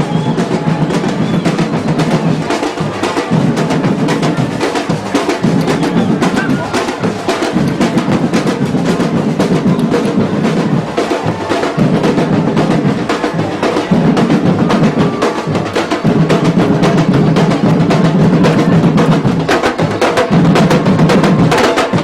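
Afro-Brazilian batuque percussion ensemble playing: dense, fast drum strokes over a deep low drum pattern that comes and goes in stretches of a few seconds.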